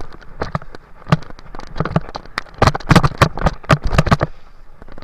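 Mountain bike jolting fast down a rough dirt trail, rattling and knocking in a quick irregular run, easing off about four seconds in.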